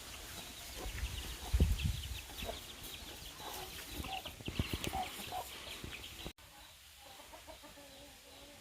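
Chickens clucking in a run of short calls. A few low thuds about one and a half seconds in are the loudest sound. The audio cuts off abruptly a little after six seconds, and fainter calls follow.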